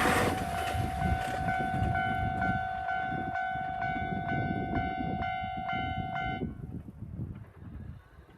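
Level-crossing warning bell ringing in a steady rhythm of about two strikes a second over the fading rumble of the passing Resort Shirakami train. The bell cuts off abruptly about six and a half seconds in, the sign that the train has cleared the crossing.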